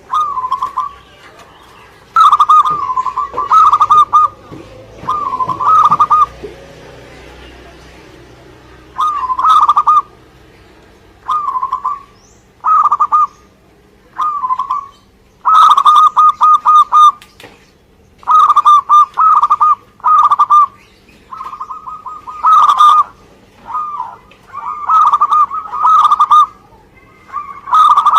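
Zebra dove (perkutut) cooing over and over, more than a dozen short, rolling phrases with brief pauses between them.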